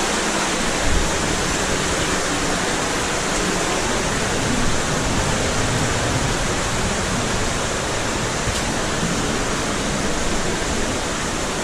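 Steady rushing of flowing water in a cave passage, an even, unbroken hiss.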